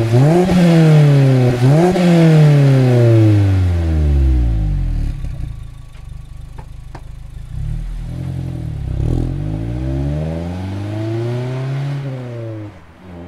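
Mazda ND Miata RF's 2.0-litre four-cylinder engine through an HKS Legamax Premium axle-back exhaust with dual tips. It is blipped twice from idle, the revs rising sharply and falling away, and then settles to idle. From about 8 s the car accelerates, the revs climbing with drops in pitch at upshifts.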